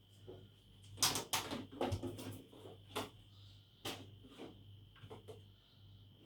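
Irregular knocks and clatters, thickest between about one and two and a half seconds in, over a steady high-pitched tone and a low hum.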